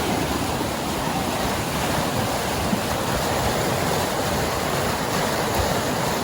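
Steady rush of fast-flowing water in a rocky forest stream at a waterfall.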